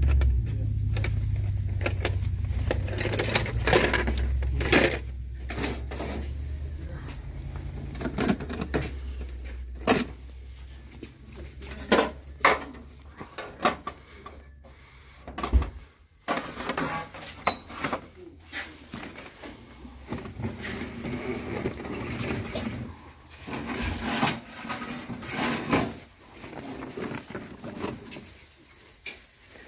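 Stacked plastic bowls, trays and plates being handled and shifted on a shelf: irregular knocks and clatter, under a low rumble for the first several seconds.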